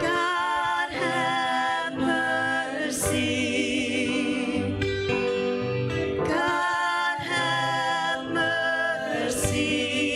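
Worship song: a voice singing with vibrato over guitar accompaniment.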